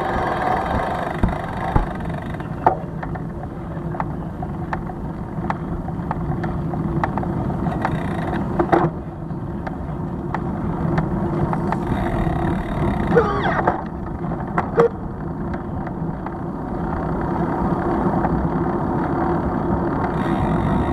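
Street traffic and road noise picked up by a bicycle-mounted camera while riding, with frequent sharp clicks and knocks and a short squeal about two-thirds of the way through.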